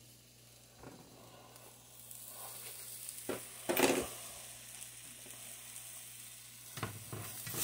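Elk burger patties sizzling quietly in a frying pan, the hiss growing a little stronger about a second and a half in. A few light knocks break in, the loudest near the middle.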